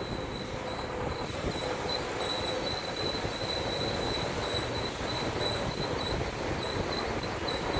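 BMW 116i brakes squealing: a high-pitched tone that pulses in a quick, even rhythm over a low rumble.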